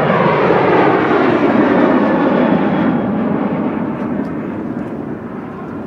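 Southwest Airlines Boeing 737's jet engines at takeoff thrust as it climbs out overhead: a loud, steady rushing noise whose pitch falls as the plane passes, then slowly fades as it pulls away.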